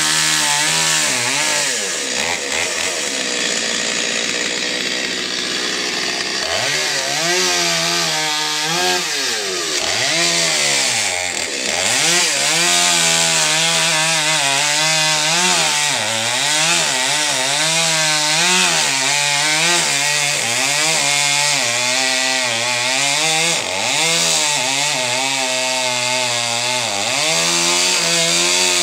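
Chainsaw cutting into the trunk of a white pine, its engine pitch repeatedly dropping under load in the wood and rising again.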